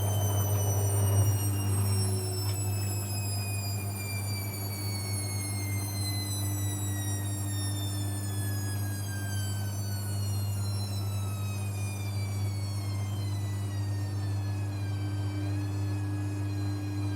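Techwood WB 91042I washing machine slowing down after a spin, its motor whine falling slowly and steadily in pitch over a steady low hum.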